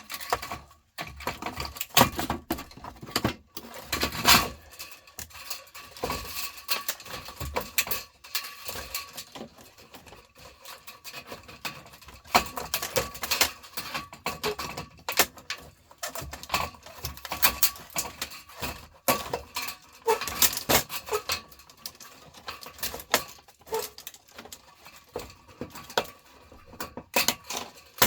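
Metal parts and hand tools clinking, clicking and clattering irregularly as a fluorescent light fitting is taken apart by hand.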